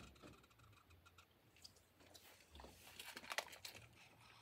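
Near-silent room tone, with a brief cluster of faint crinkly clicks about three seconds in.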